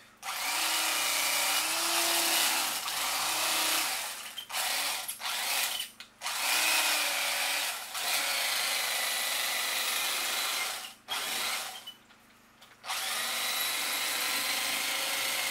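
Corded electric fillet knife running in several bursts of a few seconds with short stops, its whine wavering in pitch as the reciprocating blades cut fillets from a bowfin.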